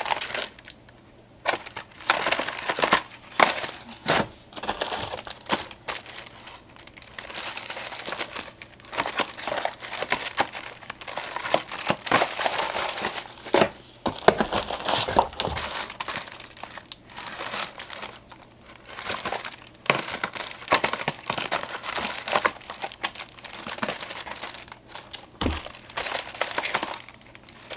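Packaging crinkling as 3D false eyelashes are taken out and sorted into trays, in short irregular spells with brief pauses between them.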